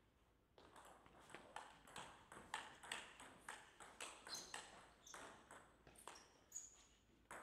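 Table tennis rally: the celluloid ball knocks sharply off the bats and the table, about three or four knocks a second. It starts about half a second in and stops shortly before the end.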